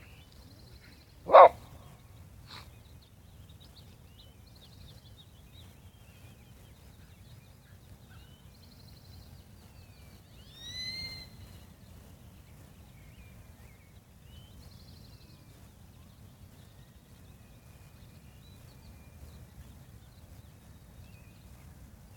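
A dog barks once, loudly, about a second in, with a fainter bark about a second later. After that there is a low outdoor background with faint high chirps now and then, and about halfway through a short call that rises and falls in pitch.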